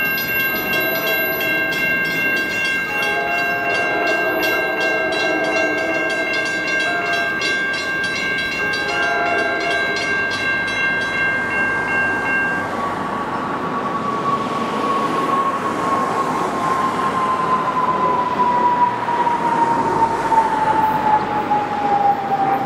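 NJ Transit train horn blowing one long steady chord for about twelve seconds over the rumble of a passing train. After the horn stops, a single whine slowly falls in pitch as the train goes by.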